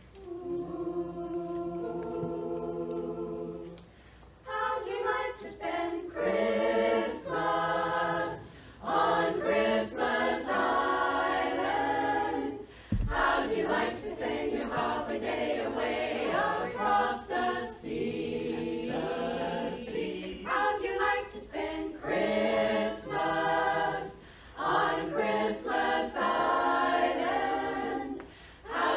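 Women's barbershop chorus singing a cappella in close harmony. A held chord opens, then phrases of sung harmony follow with short breaks between them.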